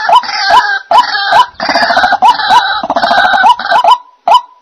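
White-breasted waterhens calling: a harsh, croaking 'ruak ruak' chorus over a steady run of short repeated notes, about two a second. Near the end the chorus stops and only the single repeated notes go on.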